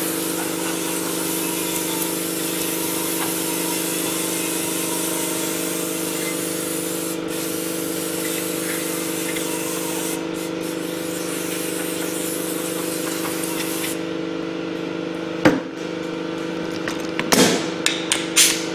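Steady hiss of aerosol brake cleaner and compressed air from a blow gun, washing and drying a brake rotor hub. A low steady hum runs underneath. The hiss stops about 14 seconds in, and a few sharp knocks follow.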